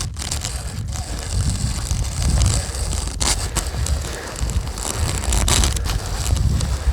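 Ice crunching and crackling as a coating of freezing-rain ice is broken up on an electric fence wire and the iced grass underfoot, with a few sharper cracks about a second, three seconds and five and a half seconds in. A steady low rumble of wind on the microphone runs underneath.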